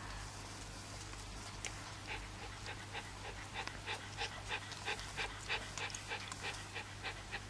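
Basset Fauve de Bretagne puppy licking and chewing a treat from a hand: quick wet smacking clicks, about four or five a second, starting about two seconds in.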